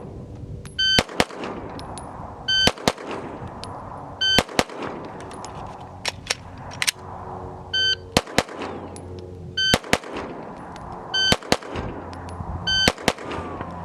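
Pistol shots fired mostly in quick pairs, about every second and a half, with echo trailing each one. Short electronic shot-timer beeps come with each group.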